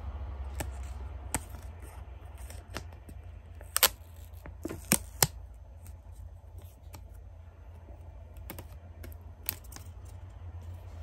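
Irregular sharp clicks and taps from handling an Apple AirPods Pro charging case and peeling its plastic protective film off, loudest about four and five seconds in, over a steady low hum.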